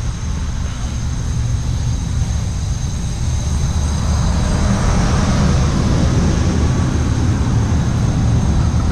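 Steady loud machine rumble with a hiss and a faint high whine, as from shop machinery running.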